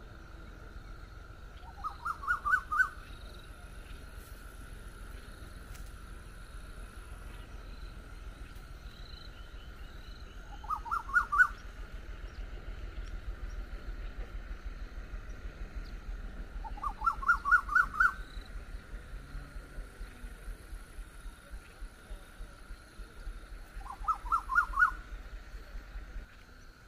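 A bird calls four times, each call a quick series of five or six notes rising in pitch, over a steady high drone.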